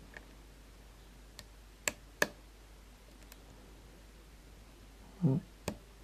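Hook pick and tension wrench working the pins of a Brady LockOut padlock: a scattering of sharp light clicks, the two loudest about two seconds in. A brief low thud comes about five seconds in.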